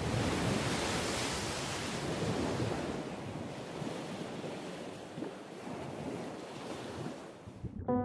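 Sea waves breaking and washing in surf, a steady rushing noise that fades gradually over the last few seconds. Music begins just at the end.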